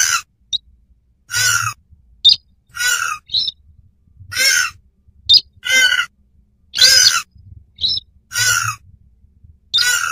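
Lure-call recording of a swamphen and a slaty-breasted rail calling in duet: longer calls about every second and a half, with short sharp notes between them.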